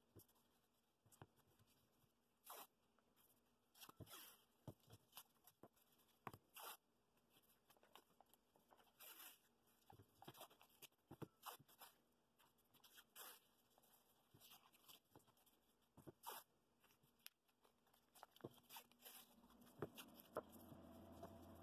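Blue painter's tape being pulled off its roll and pressed around a stacked wood blank: faint, scattered short rasps and rubs. A low steady hum comes in near the end.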